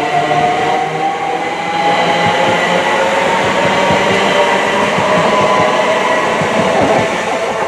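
GWR Class 387 Electrostar electric multiple unit running past, with wheel-on-rail running noise. Its traction motors whine and the whine rises slowly in pitch as the train picks up speed.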